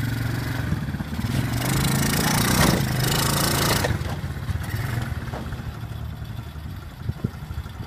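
Small ATV engine running under throttle, rising in level as the quad climbs aluminium loading ramps into a pickup bed, then easing back to a quieter run once it is aboard. A couple of short knocks come near the end.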